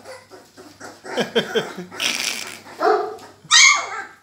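Central Asian Shepherd (Alabai) puppies yapping and yelping: a string of short calls, the loudest near the end falling in pitch.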